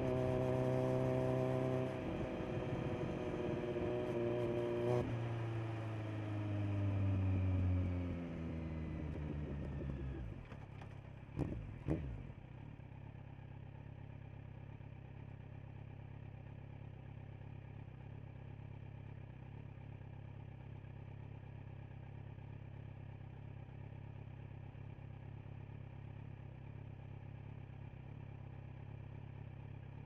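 Kawasaki Z900's inline-four through a LeoVince LV10 Carbon slip-on exhaust. It holds steady revs for a few seconds, then the revs fall away over about five seconds as the bike slows. Two sharp clicks come near the middle, and then the engine settles into a steady, quieter idle.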